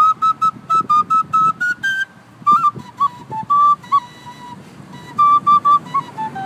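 Wooden end-blown flute playing a Chilean folk melody in short, separated notes: a quick run of repeated notes climbing a little in the first two seconds, a brief pause, then a phrase stepping down and a second run of short repeated notes before falling again near the end.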